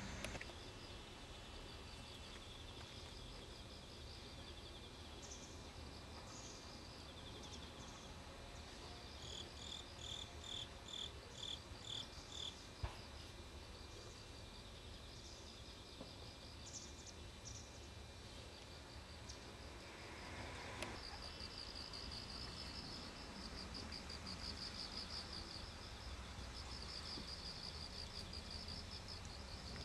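Outdoor summer ambience of insects chirring in repeated high-pitched pulses, growing steadier and louder about two-thirds of the way through, with a short run of evenly spaced bird-like calls in the middle. A faint low rumble sits beneath, and there are a couple of soft clicks.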